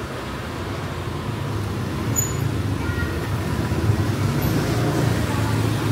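Motorbike engine running nearby amid the lane's street noise, a low rumble that grows steadily louder.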